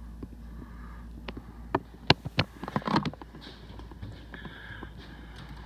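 Several sharp clicks and knocks close together, between about one and a half and three seconds in, over a low steady hum.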